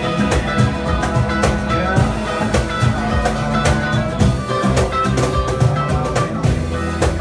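Live band playing: strummed acoustic guitar, electric bass and electric guitar over a drum kit keeping a steady beat.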